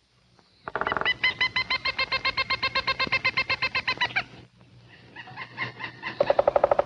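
Woodpecker calling: a long, rapid series of ringing notes, about eight a second, lasting some three and a half seconds. After a short pause a second series starts faintly and grows louder near the end.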